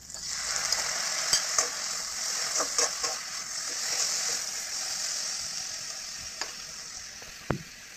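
Chopped tomatoes and onions sizzling in hot oil in a metal kadai, the hiss swelling just after the tomatoes go in, while a metal spoon stirs and scrapes, clicking against the pan several times with one sharper knock near the end.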